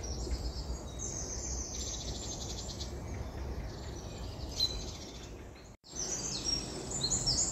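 Woodland songbirds singing, with high chirps and trills, and near the end a bird repeating a short arched note several times in a row. Wind rumbles low on the phone's microphone throughout, and the sound cuts out for a moment just before six seconds.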